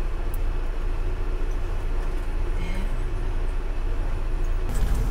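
Steady low rumble of a coach bus's engine and running noise, heard from inside the passenger cabin as the bus drives onto a car ferry, with a brief clatter near the end.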